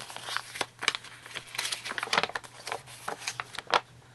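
Paper and packaging being handled, a run of short, irregular crinkles and rustles.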